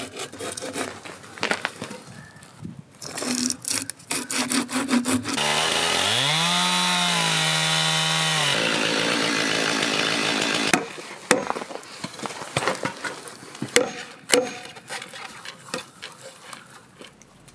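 Scattered knocks and clatter of wood work, then a chainsaw revs up, its pitch rising and holding steady as it cuts a notch into a standing log pole for about five seconds before cutting off suddenly. Irregular knocks and taps follow as a hatchet works the notch.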